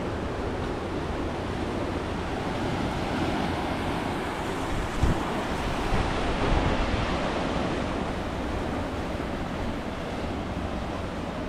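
Ocean surf breaking and washing on the shore in a steady rush, with wind on the microphone and a couple of low thumps about halfway through.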